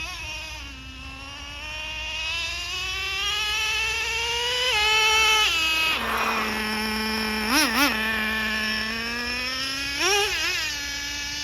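Nitro-fuelled RC car engine revving: its pitch climbs steadily for a few seconds, drops sharply twice around five to six seconds in, then settles to idle between two quick throttle blips near eight seconds and another short burst near ten seconds.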